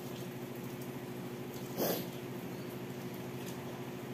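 Steady low hum, with one short, sharp sound a little under two seconds in.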